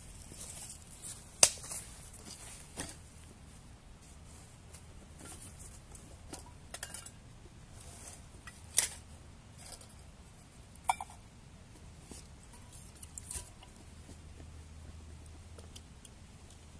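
Camping gear being unpacked from a shoulder bag: rustling and scattered clicks and knocks as a metal twig stove and a metal cup are taken out and set down. The loudest is a sharp knock about a second and a half in, and there is a short ringing metal clink near the end.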